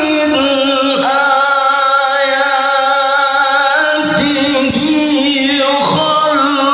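A male qari reciting the Qur'an in melodic tilawah style, one voice drawing out ornamented, wavering notes. A long held note starts about a second in, then shorter phrases follow from about four seconds.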